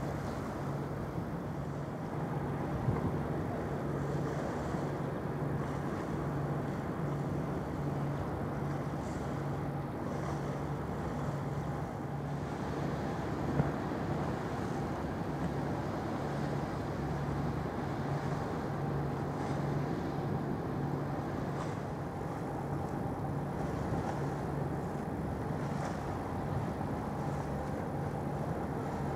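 Steady low drone of a ship's diesel engines with an even, regular throb, heard from shore as a car ferry passes.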